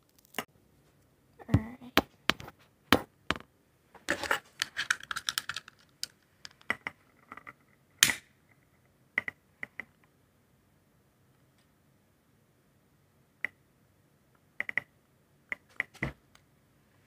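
A long-nosed utility lighter clicking irregularly as its trigger is pressed again and again to light a jar candle, with a denser patch of clicks and rustling about four seconds in.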